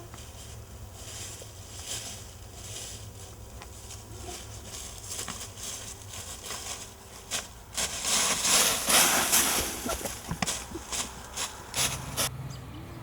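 Rustling and crunching of brush and dry leaves underfoot, with a louder stretch of rapid crackling for a few seconds from about eight seconds in, over a low steady hum.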